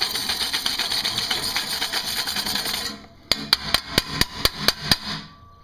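A rough, steady scraping noise for about three seconds, then about nine quick, sharp metal knocks, about five a second, ringing like struck steel on the thin saw blade.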